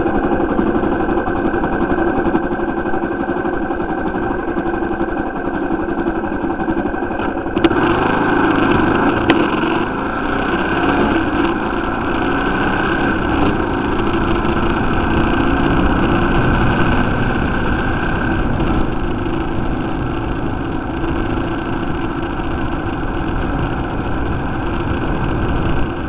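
Motorcycle engine running while riding along a road, a steady drone that gets louder and fuller suddenly about seven and a half seconds in.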